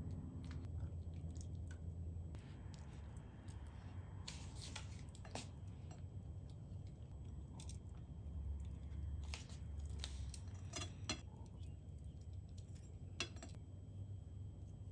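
Faint scattered clicks and soft scrapes over a steady low hum.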